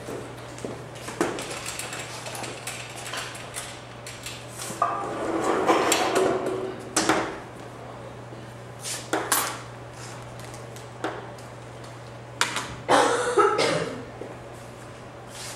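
Scattered knocks and clicks, with a longer rattling rush about five to seven seconds in and another burst near the end, as a pull-down classroom projection screen is rolled up; a steady low hum runs underneath.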